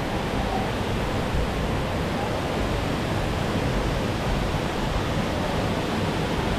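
Steady rush of a waterfall cascading into a pool of running water.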